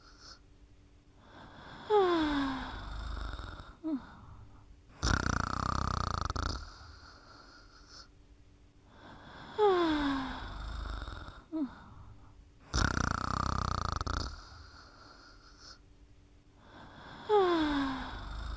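Snoring in a slow, regular rhythm, one breath cycle every seven or eight seconds. Each cycle has a whistling wheeze that slides down in pitch, a brief squeak, then a rasping snore.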